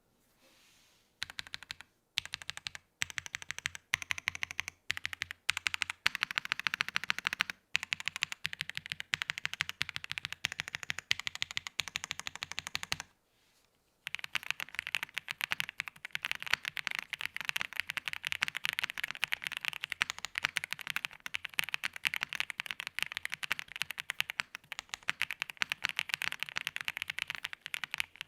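Typing on an Angry Miao AM Compact Touch mechanical keyboard with Icy Silver linear switches, an FR4 plate in an aluminium case with a brass weight, and stock unlubed stabilizers. Bursts of keystrokes with short pauses, a brief stop about 13 seconds in, then fast continuous typing.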